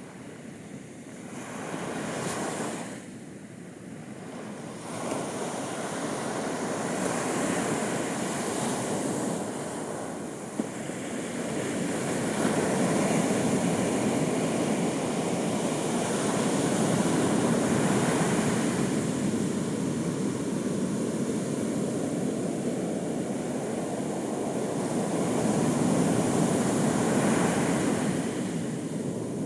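Ocean surf breaking on a beach, waves rolling in as a steady rush of water. One wave swells about two seconds in, then a bigger run of surf builds and stays loud for most of the rest.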